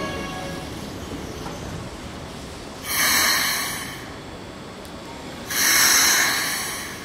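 Keikyu 600 series train standing at the platform, letting out two loud hisses of compressed air, each about a second long and about two and a half seconds apart, typical of its air brakes venting after the stop. A faint inverter whine dies away in the first half-second.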